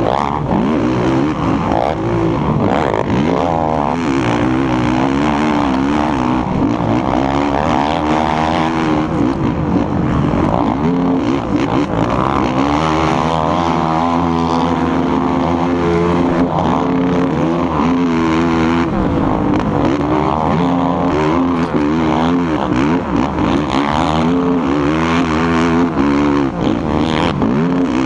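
Sport quad (ATV) engine revving hard and backing off again and again as it is raced round a dirt track, its pitch climbing and falling with each straight and corner. Heard from the rider's seat, so the engine is close and loud.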